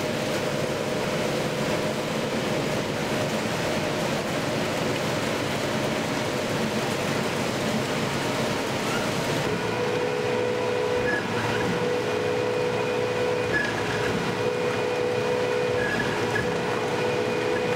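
WEIMA WLK15 single-shaft shredder (90 kW) running, its rotor cutting PVB film: a steady, dense grinding noise with a constant hum. About halfway through, the high hiss drops and a steady tone comes up stronger.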